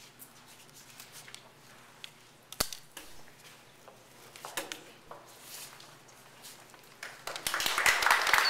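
Audience applause breaking out about seven seconds in and growing louder, as a dense patter of many hands clapping. Before it, a hushed room with scattered small clicks and one sharp knock.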